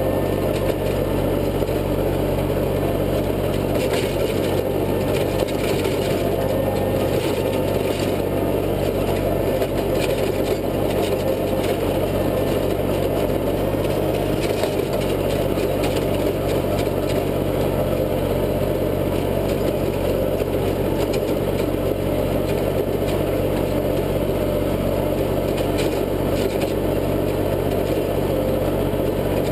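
International tractor's engine running steadily under load, driving a PTO rotary tiller that churns through soil. Occasional faint cracks come from woody debris in the tines.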